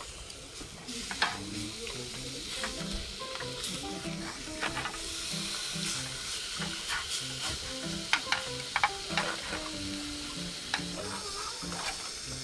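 Slices of meat sizzling in a frying pan, with a steady hiss. Chopsticks click and scrape against the pan as the pieces are turned.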